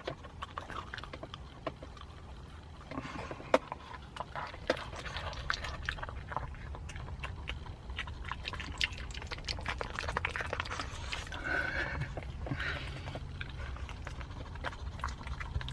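Small maltipoo dog licking ice cream: a run of quick, irregular wet clicks and smacks from its tongue.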